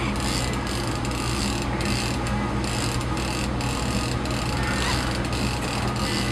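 Conventional trolling reel being cranked, its gears giving a fast ratcheting click as line is wound in on a fish. The boat's engine drones steadily underneath.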